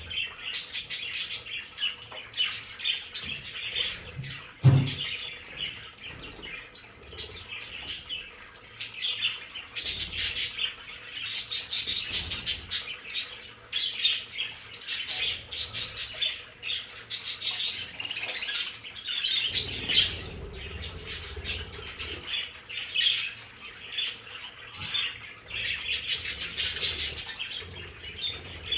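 A flock of budgerigars chattering, chirping and squawking continuously, with one brief low thump about five seconds in.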